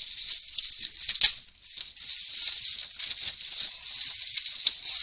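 Packaging being handled as a box is opened: a continuous light rustle of plastic and cardboard with scattered sharp clicks, the loudest a pair about a second in.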